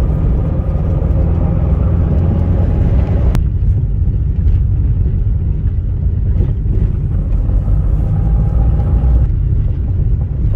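Road noise inside a moving car: a steady, loud low rumble of engine and tyres. About three seconds in there is a sharp click and the higher part of the sound drops away, leaving the rumble.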